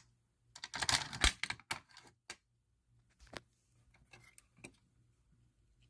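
Clicks and rattles of fire alarm hardware being handled: a dense run of clicks in the first two seconds, then a few scattered clicks. The horn does not sound.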